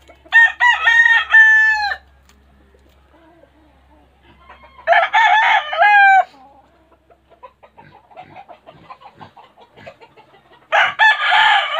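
Gamecock roosters crowing: two crows of about a second and a half each in the first half, and another loud crow starting near the end, with faint ticking in the quiet between.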